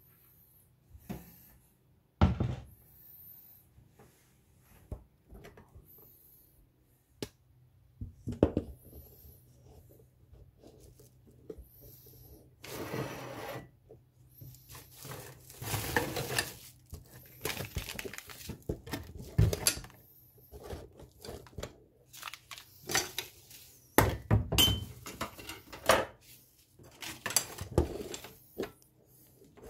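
Kitchen clatter: dishes and utensils being handled, with irregular knocks and clinks and a few short scraping or rustling stretches.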